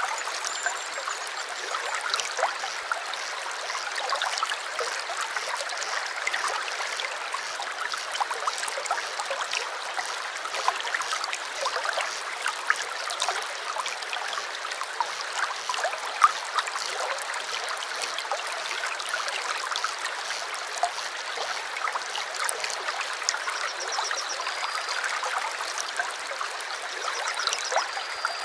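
A small stream running steadily: a constant babble of water with many small splashes. A few faint, high bird chirps come through near the start and again near the end.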